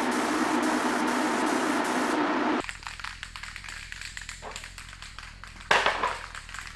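Steady loud rushing noise of a parts-cleaning tool working on steel leaf springs, which cuts off abruptly about two and a half seconds in. After that come quiet handling clicks and a single loud scraping knock near the end.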